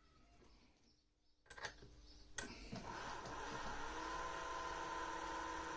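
Small prayer-bead lathe's electric motor switched on: a couple of sharp clicks, then the motor spins up with a rising whine over about a second and runs steadily.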